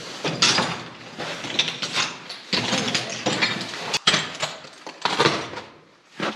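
Footsteps crunching in snow, about two steps a second and uneven, with a sharp click about four seconds in.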